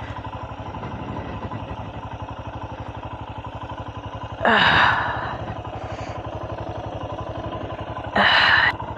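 Royal Enfield Himalayan 411's single-cylinder engine idling with an even, steady beat. Two short rushing noises cut in over it, about halfway through and again near the end.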